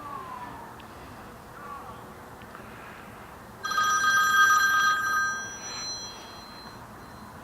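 A bell rings in one rapid trill lasting about a second and a half, starting about three and a half seconds in, then fades out.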